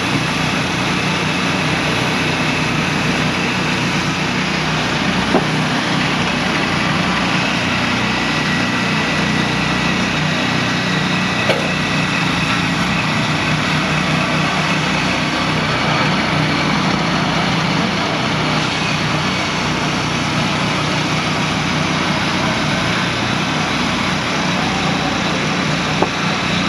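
Steady running of small gasoline engines, among them the engine of a portable bandsaw sawmill. A few sharp knocks come about five, eleven and twenty-six seconds in.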